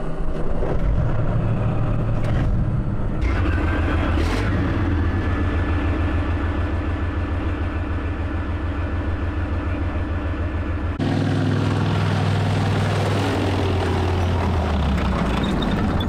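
Leopard tank engine starting up and running with an even pulsing beat while exhaust smoke drifts off the engine deck. About eleven seconds in it turns suddenly louder and rougher as the tank drives off.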